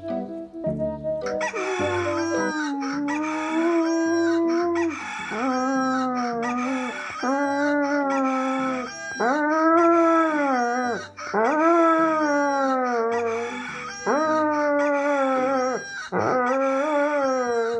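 Dog howling and whining in protest at a birdsong alarm played to it from a phone: a long run of rising-and-falling cries, about one a second, over soft background music.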